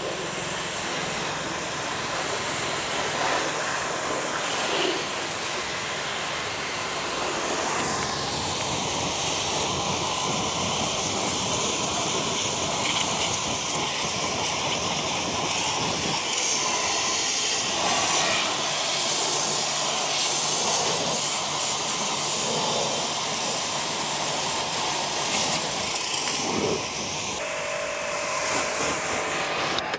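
Ballorex B7KS-CW130 high-pressure washer spraying a continuous jet of water onto a car's body and wheels, a steady hiss. The hiss changes character about eight seconds in and again near the end as the jet moves over the car.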